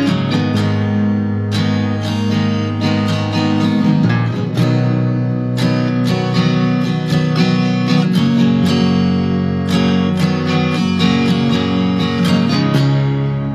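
Acoustic guitar strumming chords in a recorded worship song, instrumental with no singing yet.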